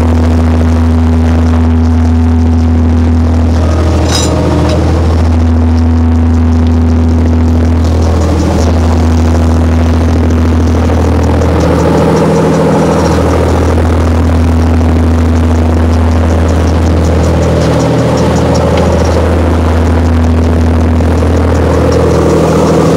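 Loud, steady drone of a fishing boat's engine under way, with a low hum that swells and eases every few seconds. The hiss of the churning wake sits over it.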